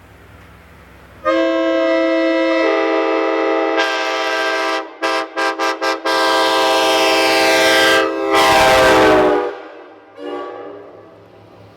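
Locomotive multi-chime air horn sounding loudly as a chord of several notes: a long blast with more notes joining, then a run of about five quick toots, then long blasts again. The pitch sags as the horn dies away about three-quarters of the way through.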